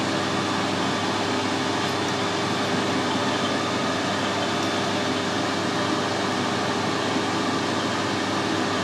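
Steady whirring hum of running workshop machinery, even and unbroken, with a faint steady tone in it.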